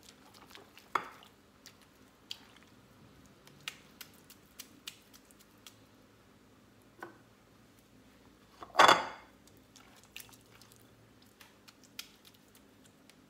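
Hands working soft homemade butter in a bowl and packing it into a glass jar: scattered light taps and clicks of contact with the bowl and jar, and one louder knock a little under nine seconds in.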